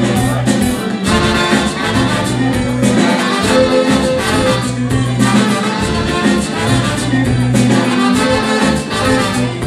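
A live afrobeat band playing a steady dance groove: a horn section of trumpet, saxophone and trombone over electric guitar, bass and drum kit, heard from within the crowd.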